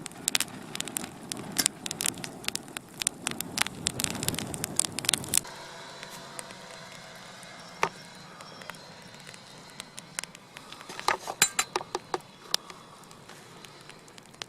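A wood campfire crackling and popping, with irregular sharp snaps. A low rumble under it stops abruptly about five seconds in.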